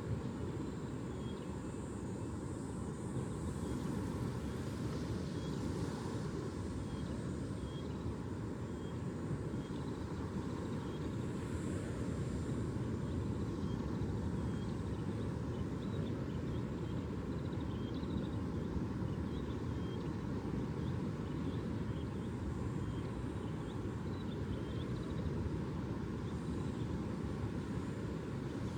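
Steady low rumbling outdoor noise with no breaks, with faint short high chirps repeating about once a second.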